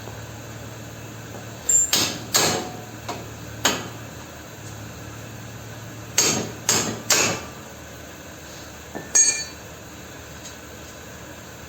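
Hammer blows on metal car suspension parts, each hit ringing briefly: a few strikes about two seconds in, three more in quick succession around six to seven seconds, and a last one near nine seconds.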